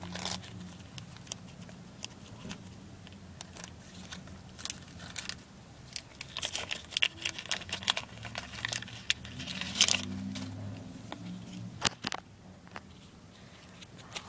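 A sticker pack's wrapper being torn open and crinkled by hand, in scattered crackles and rustles that are busiest about six and ten seconds in.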